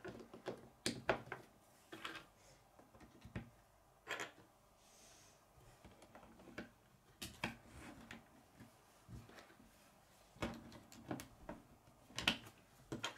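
K'nex plastic rods and connectors being handled and snapped together, with clicks and taps against a wooden tabletop. The clicks come irregularly, some in quick runs with pauses between.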